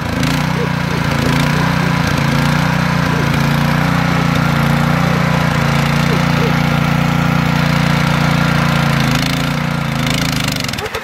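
Ruris 751KS two-wheel tractor's petrol engine running steadily under load while its front sickle-bar mower cuts tall grass; near the end the engine slows and drops in pitch.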